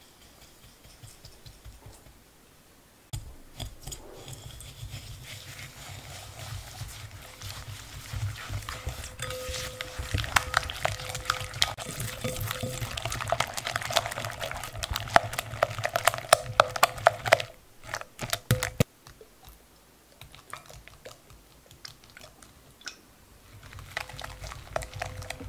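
A whisk beating eggs and sugar in a glass bowl: rapid wet splashing with the wires ticking against the glass. It starts about three seconds in, is strongest in the middle, stops for several seconds near the end and starts again just before the end.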